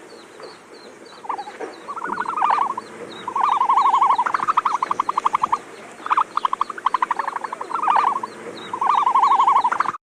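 Frogs calling in a chorus: bouts of rapid pulsed trilling croaks, several overlapping, with a fainter high chirping repeating steadily behind them.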